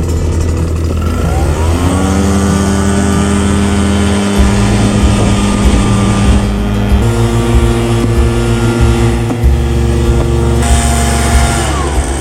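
Background music: held chords over a bass line, with the chords shifting to new notes a few times.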